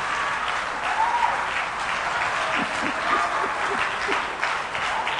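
Congregation applauding, a dense patter of many hands clapping, with a few voices calling out over it.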